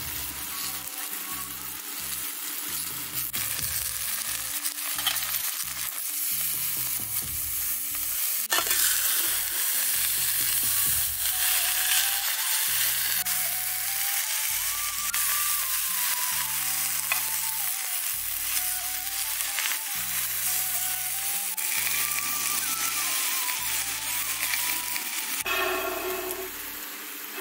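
Malabar spinach (poi) leaves sizzling in spiced masala in a kadhai over a high wood fire, being stirred with a metal spatula. The sizzle grows louder about a third of the way in.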